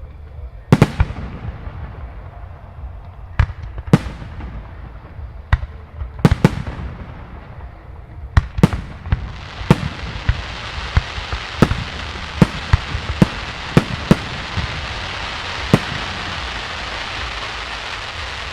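Aerial firework shells bursting, a string of sharp bangs at uneven intervals, some in quick pairs. About nine seconds in, a dense crackling hiss sets in and carries on, with further bangs over it, typical of crackling-star effects.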